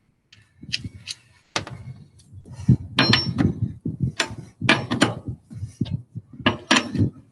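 Irregular metal clanks and knocks from a lug wrench being worked on a stubborn lug nut of a car wheel, a dozen or so sharp strikes, some with a short metallic ring.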